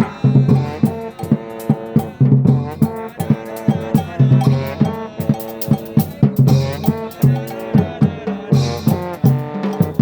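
Brass band of trombones and other horns playing a tune in parts over a steady drum beat.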